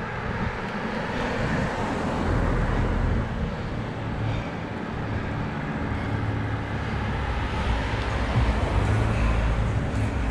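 Cars driving past on a town street, a steady hum of engines and tyres that swells as each car draws near, loudest twice.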